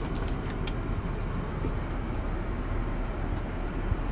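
Steady rushing cabin noise inside a Boeing 787's crew rest compartment, the airframe's air and engine noise, with a soft knock near the end.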